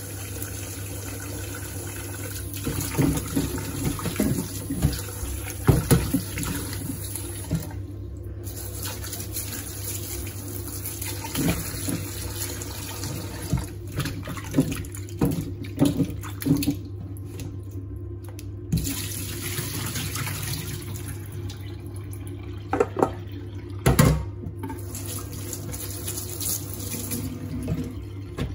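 Kitchen tap running into a stainless-steel bowl of vegetables in a steel sink, with splashes and knocks as hands rub and turn the vegetables under the stream.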